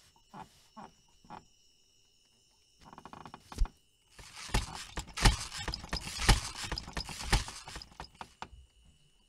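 Foley clatter: a single sharp knock, then a dense run of small hard knocks and clicks over rustling that lasts about four seconds and stops shortly before the end. A few short soft sounds come near the start.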